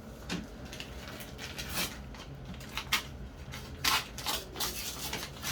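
Packaging being unwrapped from a parcel: irregular rustling and crinkling, with a couple of sharper crackles about three and four seconds in.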